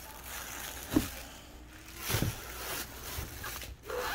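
Plastic packaging rustling and items being shifted around inside a cardboard box, with a light knock about a second in.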